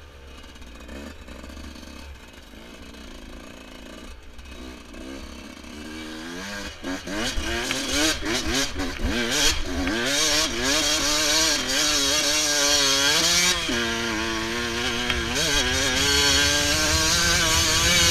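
Yamaha YZ125's single-cylinder two-stroke engine, running low and quiet at first, then revving hard from about six seconds in as the bike climbs a hill. Its pitch rises and drops again and again with throttle and gear changes.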